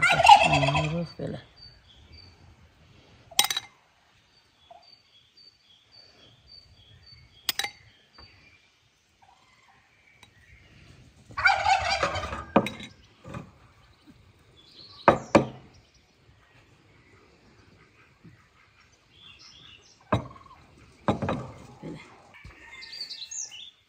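A turkey gobbling twice, each a warbling call of about a second, once at the start and again about halfway through. Between the calls come a few sharp clinks of a metal spoon against a small glass bowl.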